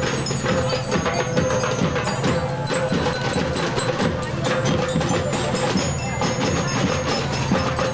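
A percussion band playing: rapid, even drum strikes with ringing metallic bell notes, over a steady low hum.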